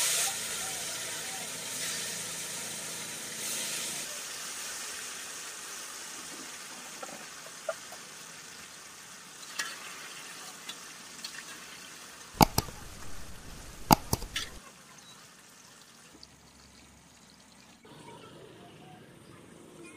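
Marinated fish pieces frying in hot oil in an iron kadai: a loud sizzle that fades steadily as the frying settles. A few sharp metal clanks come about two-thirds of the way in, a slotted ladle knocking against the pan.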